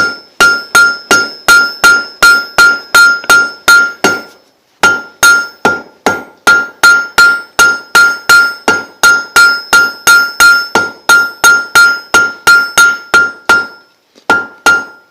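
A blacksmith's hammer strikes hot quarter-inch steel on an anvil in a steady rhythm of about four blows a second, each blow with a clear ringing tone. He is drawing out a taper on the second end of an S hook. The hammering pauses briefly about four seconds in and stops near the end, followed by a couple of lighter taps.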